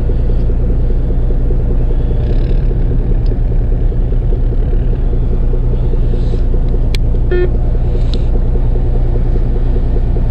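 Fishing boat's engine running steadily with a low, even drone, and a couple of faint clicks partway through.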